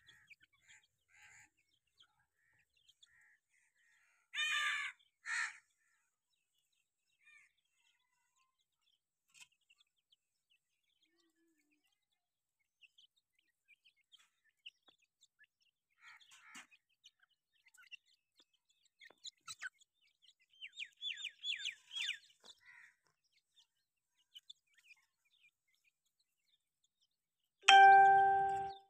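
Young grey francolins chirping and calling in short scattered notes, with two louder calls about four and five seconds in and a run of quick falling chirps around twenty seconds in. Near the end a loud, steady, chime-like ding lasts about a second.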